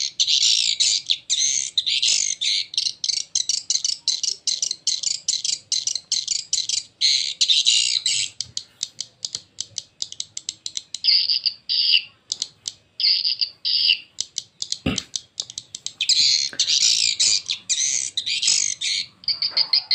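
Swiftlet lure-call recording played through two AX65 horn tweeters: a relaxed, unhurried stream of high chirping calls and rapid clicks that thins to sparse clicks and short chirp pairs midway, then turns dense again near the end. A single sharp knock falls about three quarters of the way through.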